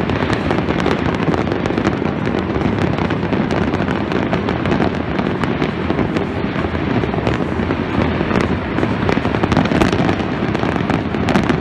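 Fireworks display: a dense, unbroken run of crackles and bangs from many shells bursting at once.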